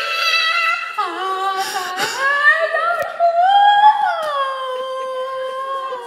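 A girl singing loudly, her voice sliding between notes and ending on a long held note that sinks slightly.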